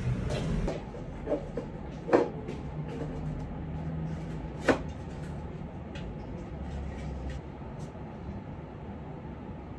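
A few sharp knocks and bumps of objects being handled, the two loudest about two and five seconds in, over a low steady hum.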